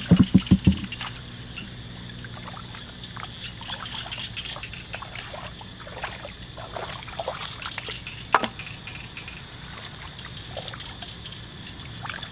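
Hands digging and scooping in shallow muddy paddy water: trickling and small splashes with wet squelches of mud. A quick run of dull thumps comes right at the start, and a single sharp click about eight seconds in.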